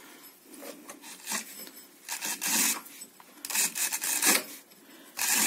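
Scraping and rubbing of metal engine parts in about five short strokes, as the variator-side shaft of a scooter engine is worked by hand; the shaft has far more play than it should, a sign of a worn bearing.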